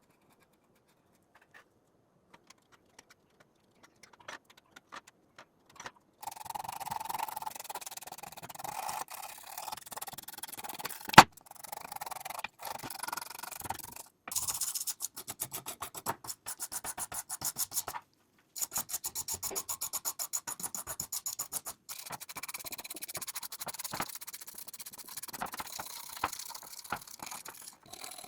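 Quick hand-abrading strokes, rubbing and rasping on a small model part as in sanding or filing. They start about six seconds in after a few faint clicks, then stop and restart abruptly several times. One sharp click about eleven seconds in is the loudest sound.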